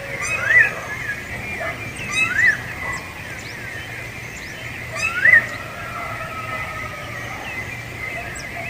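Rufous-bellied thrush (sabiá-laranjeira) singing: three short phrases a couple of seconds apart, each a quick high twitter followed by a rising-and-falling whistled note.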